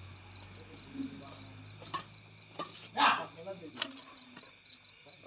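Rhythmic high-pitched chirping, about four chirps a second, that stops for a second or so midway and resumes. Several sharp knocks and a louder burst about three seconds in sound alongside it.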